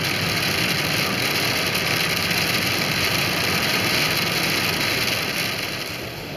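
Steady road, tyre and engine noise heard inside the cabin of a car driving on a wet road in falling snow and rain; it drops slightly near the end.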